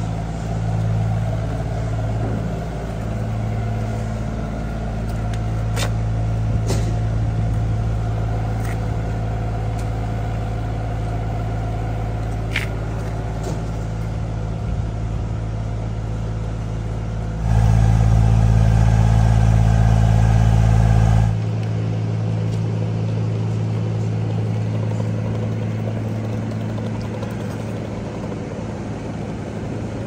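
Steady low droning hum of an idling vehicle engine, rising to a louder drone for a few seconds about two-thirds of the way through, with a few faint clicks.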